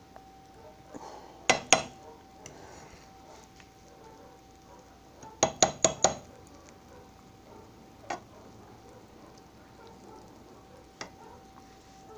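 A cooking utensil knocking against a skillet: two sharp knocks about a second and a half in, a quick run of four about halfway, then single taps near eight and eleven seconds. A faint steady hum runs underneath.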